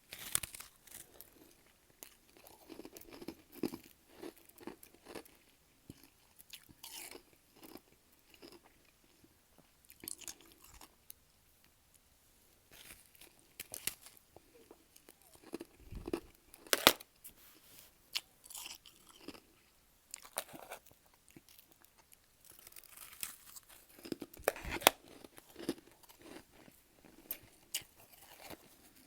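A person biting and chewing freezer frost close to the microphone: irregular crisp crunches with chewing between them. The two loudest crunches come a little past halfway and near the end.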